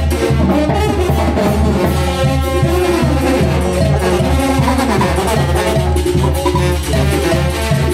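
Oaxacan brass band playing lively procession music, with drums and a steady pulsing bass line.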